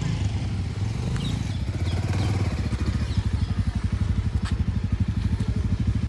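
Motorcycle engines running at low speed as loaded touring motorcycles ride off slowly, with a steady low pulsing exhaust beat.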